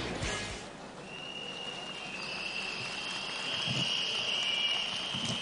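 The tail of rock music cuts off, then a steady shrill whistling rises about a second in and keeps going: a rally crowd blowing whistles as a new speaker comes to the microphone.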